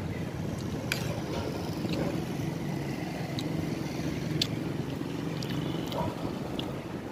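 Street traffic running steadily with a low engine hum, and several sharp clinks of a metal spoon and fork against a plate.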